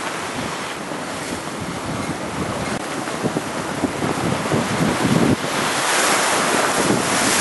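Storm surf washing and breaking over shoreline rocks, with wind buffeting the microphone. The rush of water grows louder about five and a half seconds in.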